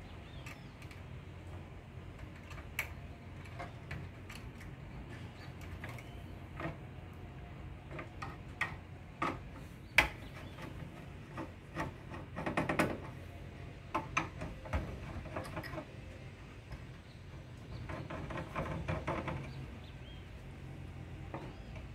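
Hands and a screwdriver dismantling the wiring and parts of a gas water heater, giving scattered clicks and light knocks of metal parts and wire connectors. Two short stretches of rubbing and scraping come, one about halfway through and one a few seconds before the end.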